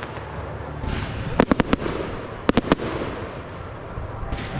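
Aerial fireworks bursting in the sky: two quick clusters of sharp cracks, several in each, about a second apart, with a fainter crack near the end.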